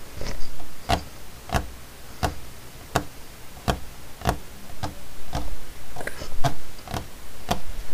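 A LEGO minifigure tapped step by step across a studded LEGO baseplate: a string of light plastic clicks, about one every two-thirds of a second, like footsteps.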